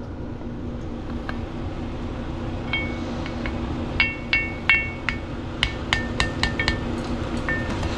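Hammer tapping metal on metal, driving a new PTO seal home into a John Deere 4455 tractor's PTO housing: a string of about fifteen ringing taps starting about three seconds in, coming a little quicker toward the end.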